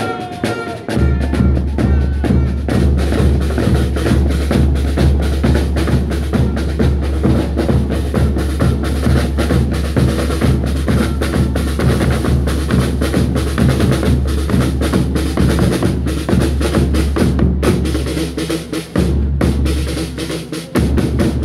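Drum-heavy music: fast snare drum strokes and rolls with bass drum, over a steady low bass that drops out briefly near the end.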